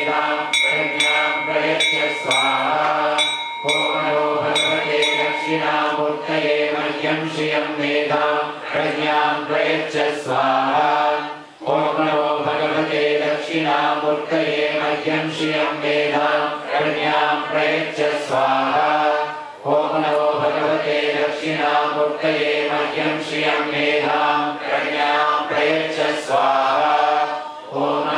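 Male voices chanting Vedic Sanskrit mantras in unison in a steady, continuous recitation, breaking briefly for breath about 11 and 19 seconds in. A hand bell rings along with the chant for the first five seconds or so.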